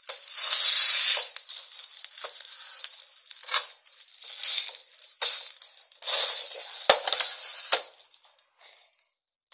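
Plastic bag and foil crinkling in a series of bursts as a clothes iron is pressed and rubbed along the bag's edge to heat-seal it shut, with two sharp knocks near the end.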